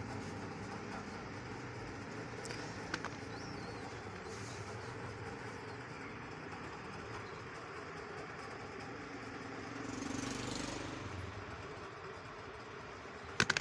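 Steady low background rumble, swelling briefly about ten seconds in, with a single click early and a few sharp clicks near the end.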